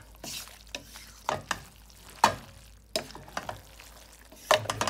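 A utensil stirring and lifting stir-fried noodles in a metal frying pan, with short scrapes and several sharp clinks against the pan, the loudest about two seconds in.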